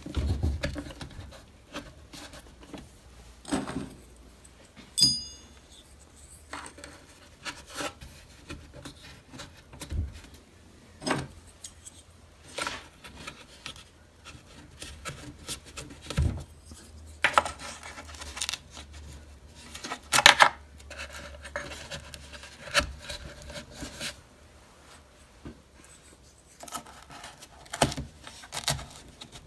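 Small metal vent grills being handled and pressed into the vent holes of a wooden TV cabinet: irregular clicks, taps and scraping. A short metallic ping rings out about five seconds in.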